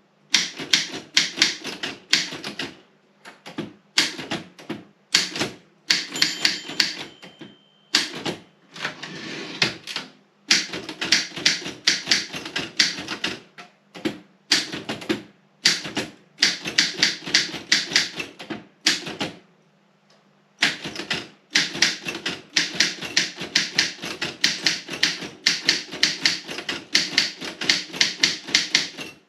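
Typing on a Robotron 20 typewriter: quick runs of sharp key strikes, several a second, broken now and then by short pauses.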